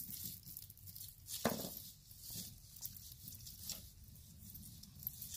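Costume jewelry being handled: metal chains, rhinestones and beads clinking and rustling lightly as hands pick through a tangled pile of necklaces, with one sharper click about a second and a half in.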